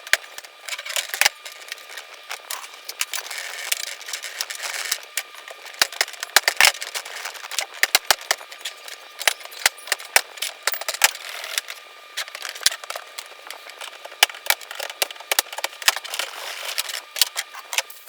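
Hand tool scraping and picking hardened resin out of the spline channel of a fibreglassed 3D-printed aquarium top: many quick, irregular scratches and sharp clicks.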